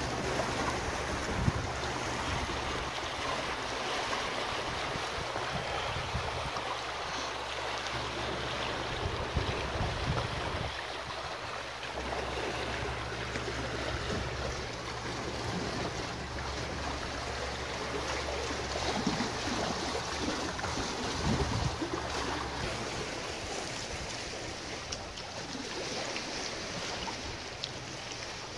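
Water rushing steadily along the hulls of a Corsair F24 Mk II trimaran under sail, with wind rumbling on the microphone and a few short knocks.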